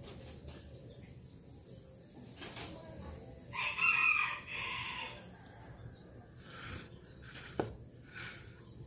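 A rooster crows once, about three and a half seconds in, over a low steady hiss. A short sharp click follows near the end.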